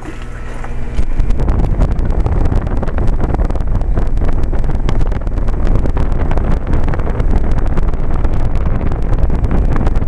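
Trane XL20i heat pump's outdoor unit running in cooling mode: a low steady hum at first, then about a second in a loud, rough wind rumble as the condenser fan's discharge air blows across the microphone over the top grille.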